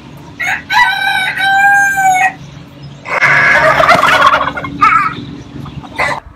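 A rooster crows once, ending in a long held note. Then a domestic turkey tom gobbles, a rough rattling call of about a second and a half, followed by two short clucks.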